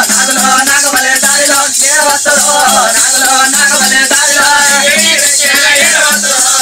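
Oggu katha folk music: a wavering, bending melody line over a steady low drone, with a constant jingling shimmer of small metal percussion.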